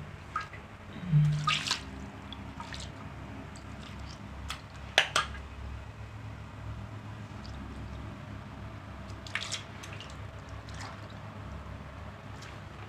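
Water running and dripping in a small room, with scattered sharp clicks and knocks, the loudest about a second and a half in and again about five seconds in.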